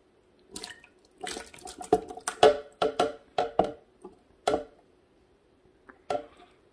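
Cooked vegetables dropped into a blender jar holding chicken broth: a quick run of short wet plops and knocks, bunched in the first four and a half seconds, with a few more near the end.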